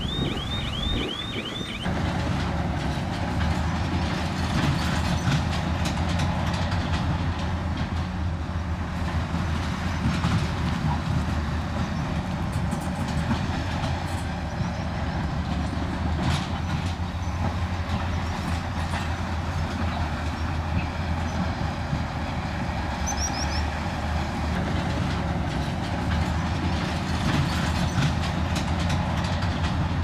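Komatsu crawler bulldozer at work: its diesel engine runs steadily under load, with clanking from the steel tracks and scattered knocks of rock. A high, rapidly repeating chirp sounds at the very start and stops about two seconds in.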